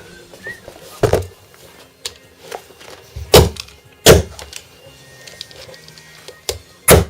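Sharp knocks and cracks of a plastic mobile phone being broken apart by hand: four hard hits spread over several seconds, with smaller clicks and scrapes between them.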